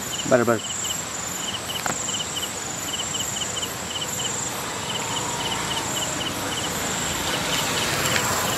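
Night insects such as crickets chirping: short groups of two or three quick pulses repeating every half-second or so, over a steady high trill.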